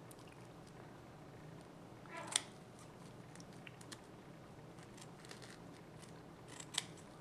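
Scissors cutting through a foam filter pad: a few quiet, sharp snips with a short crunch of foam. The loudest comes about two and a half seconds in and another near the end, with fainter clicks between.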